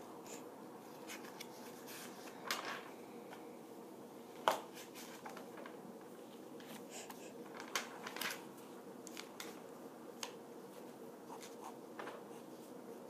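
Faint, irregular light clicks and taps of drawing on paper, over a steady low hum of room noise.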